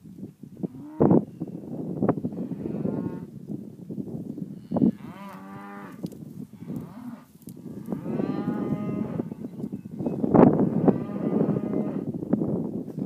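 Herd of cattle mooing, several long calls one after another over a steady low noise. Two sharp thumps stand out, about a second in and about ten seconds in.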